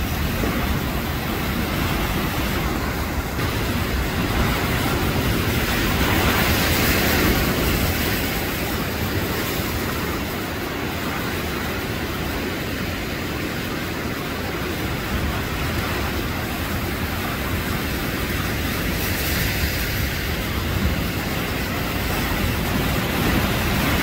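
Heavy surf breaking over rocks: a continuous roar of crashing waves and churning white water, rising and easing slightly as the waves come in.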